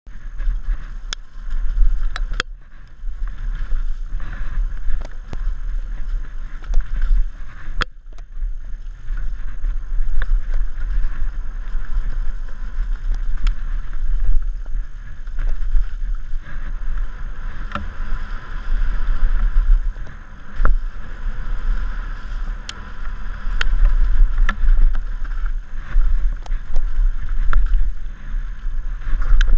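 Downhill mountain bike running down a wet dirt trail, heard from a helmet-mounted GoPro: a steady rush of tyre noise under a heavy low wind rumble on the microphone, with sharp clicks and knocks from the bike over bumps scattered throughout.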